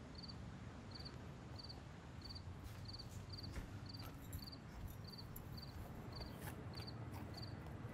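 Faint cricket chirping at an even pace, about one and a half chirps a second, over a low steady background hum, with a few faint clicks.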